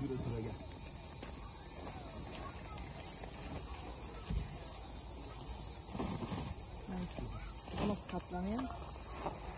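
Chorus of cicadas: a steady, high-pitched buzz with a fast, even pulse.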